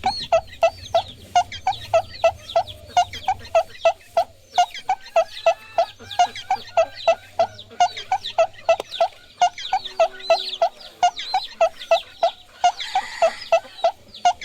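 Chicks peeping, many short high chirps overlapping, over a steady even pulse repeating about three times a second.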